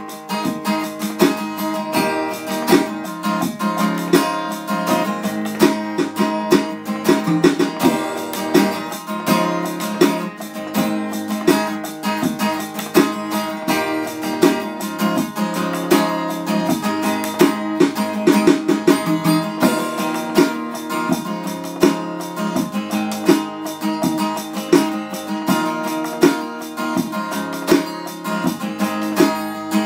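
Background music: acoustic guitar playing a steady plucked and strummed pattern.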